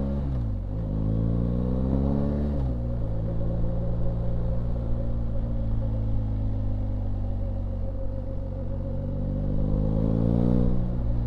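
BMW R1250GS Rallye's boxer-twin engine under way: revs climb and drop sharply twice in the first few seconds as it shifts gear, hold steady through the middle, then climb again and drop sharply near the end.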